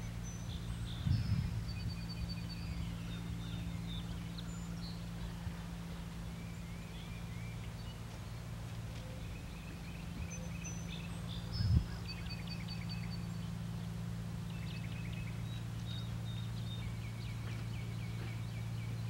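Birds calling and trilling in the dawn chorus over a steady low hum, with a brief low thump about a second in and a louder one near the end of the second third.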